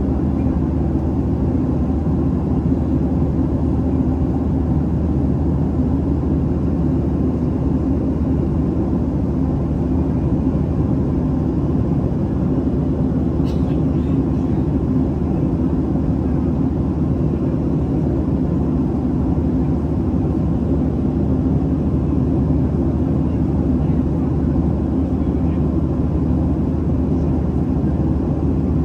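Steady drone of a Boeing 737 airliner at cruise, heard inside the cabin: a low rush of engine and air noise with a steady hum under it. There is one faint click about halfway through.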